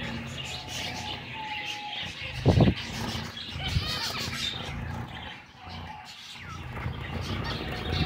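A cage of zebra finches chirping and calling over one another, over a steady low hum, with a single loud thump about two and a half seconds in.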